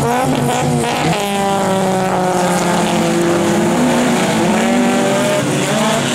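Several autocross race cars' engines revving hard on the start line, then accelerating away together about a second in, with their engine notes climbing and falling against one another.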